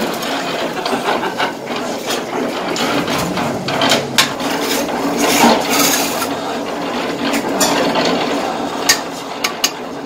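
Steel mason's trowel scraping and spreading cement mortar on hollow clay bricks, with a few sharp taps of trowel on brick, several close together near the end.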